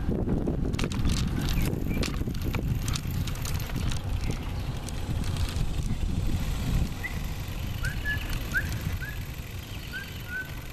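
Wind rumbling on the microphone of a camera carried along on a bicycle ride, with sharp rattling clicks over the first few seconds. From the middle on, a series of short high chirps comes in over the rumble.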